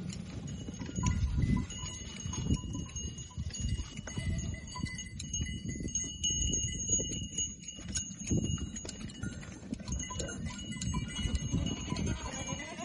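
Black goats being held down and sheared, with goat sounds and scattered clicks of the shears over an uneven low rumble. A thin, steady high ringing tone runs through most of it.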